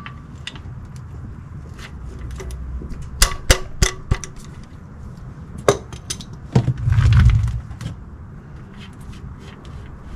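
Metal clinks and sharp clicks of a wrench working the oil pan drain plug loose, in scattered strikes with a cluster of three or four about three seconds in. About six and a half seconds in comes a louder, noisier sound lasting about a second.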